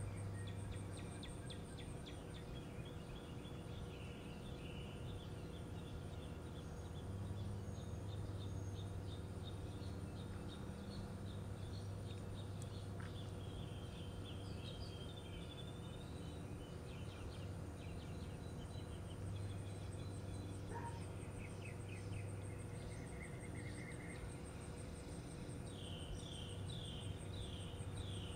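Outdoor ambience: birds chirping on and off, with a quick run of repeated chirps near the end, over a steady high insect trill and a low hum that swells and fades.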